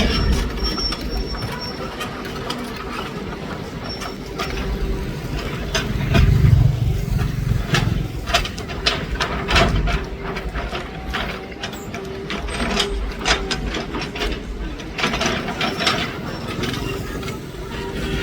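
Komatsu PC200 hydraulic excavator working: a steady diesel engine hum with a held whine, growing louder under load about six seconds in, and many sharp clanks and knocks throughout.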